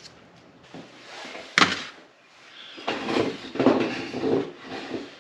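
One sharp knock about a second and a half in, like a hard object set down or struck on a workbench, followed by a stretch of uneven clattering and handling noise.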